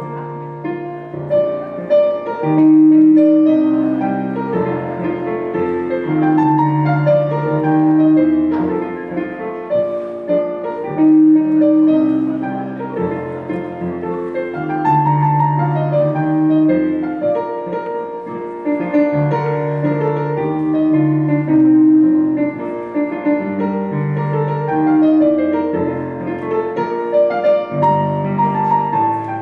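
Piano playing a lively Scottish country dance tune, a melody over a steady repeating bass.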